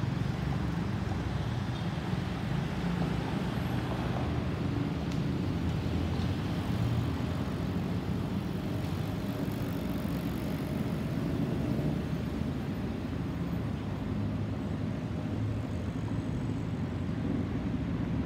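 Steady, distant low rumble of an Airbus A350-900's Rolls-Royce Trent XWB jet engines as the airliner passes high overhead.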